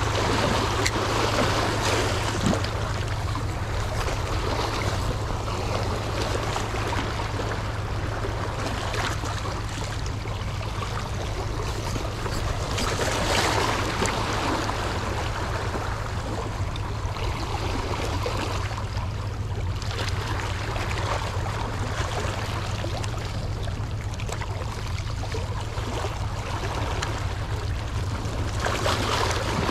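Sea water washing and lapping in slow surges, over a steady low hum.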